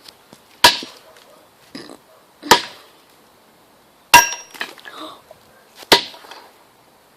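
Four hard axe blows, evenly spaced about a second and a half apart; the third gives a short metallic ring.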